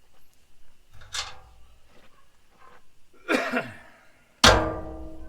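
Metal parts of a gas grill clanking as it is taken apart: three knocks, the last and loudest about four and a half seconds in, ringing on afterwards.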